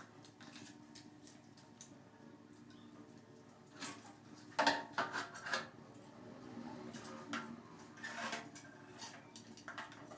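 Scattered light knocks and clicks as polystyrene foam blocks are handled and set into a plastic basin of water, with a cluster of louder knocks about halfway through.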